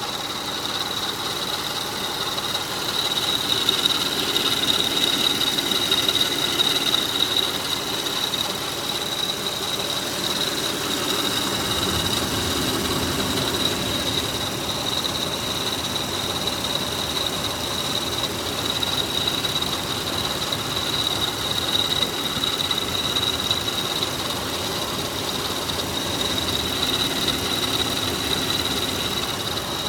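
2004 Toyota Highlander's 3.3-litre V6 (3MZ-FE) running with the A/C off, with a steady high-pitched whine over it: the chirping, scraping noise from the belt drive that appeared after the timing and serpentine belts were replaced, which the owner thinks comes from the timing belt.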